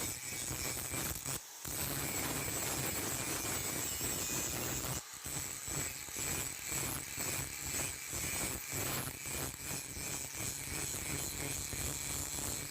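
Electric power tool running steadily on a steel blade, a constant whine over a low hum, with two brief breaks about one and a half and five seconds in.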